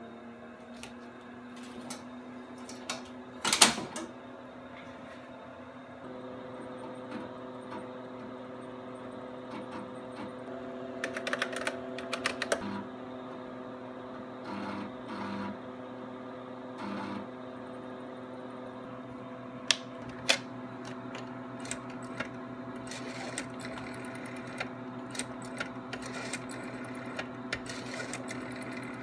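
TRS-80 Model II computer with its 8-inch floppy drive: a disk is slid in and the drive latched with a loud clack a few seconds in, then the machine hums steadily. Over the hum come a cluster of keyboard keystrokes and short bursts of drive activity as a program loads, and scattered small clicks near the end as a rotary telephone dial is worked.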